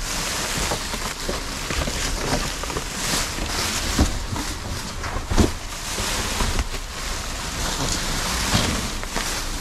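Plastic trash bags and loose items being rummaged through: continuous crinkling and rustling with irregular small clicks, and a louder knock about four seconds in and again a second and a half later.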